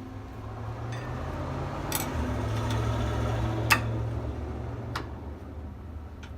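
A few sharp metallic clicks from hand tools and brake parts being worked on during a brake pad removal, over a low rumble that swells and fades in the middle.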